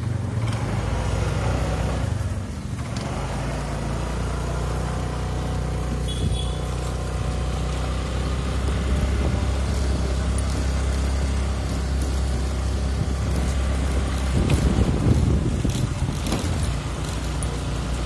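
Motor scooter engine running steadily while riding along a street, with a louder, rougher stretch near the end.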